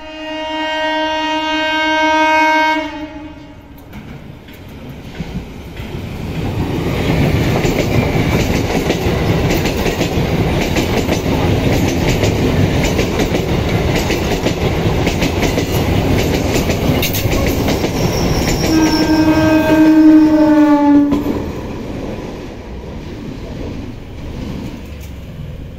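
Indian Railways EMU local train sounding its horn for about three seconds, then running past with the rumble and clatter of its wheels on the rails. A second long horn blast, falling slightly in pitch at its end, comes about three quarters of the way through, and then the noise dies away.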